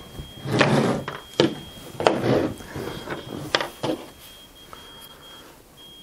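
Handling noise from a metal switching power supply and its wired power switch being moved on a tabletop: a few soft knocks and two sharp clicks, about a second and a half and three and a half seconds in.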